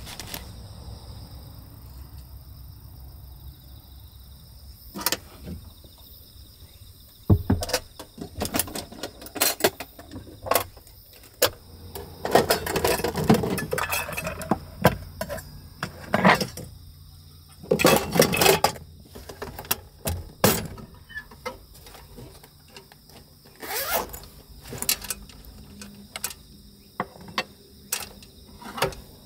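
Small items being handled in a steel toolbox: a string of clicks, clinks and knocks from jars, wooden pepper mills and the box's metal lid and wire handles, with a couple of longer stretches of rustling and scraping. Under it runs a steady high insect drone.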